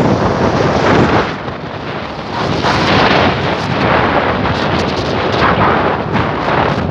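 Loud wind buffeting the microphone of a moving vehicle, surging and easing every second or so, with the rumble of the ride underneath.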